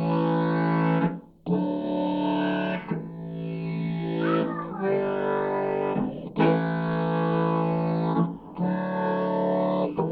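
Background music: a song's instrumental opening of sustained, distorted guitar chords, with a short break between chords about every one and a half to two seconds.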